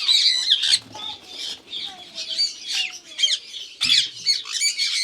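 A flock of Indian ringneck parakeets squawking, with many shrill calls overlapping, each sweeping up and down in pitch.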